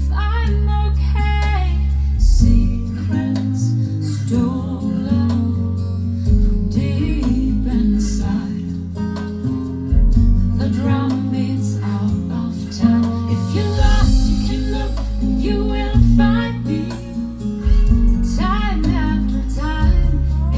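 Music played over Focal Diva Utopia loudspeakers: a woman singing a slow ballad over acoustic guitar, with deep sustained bass notes that change every second or two.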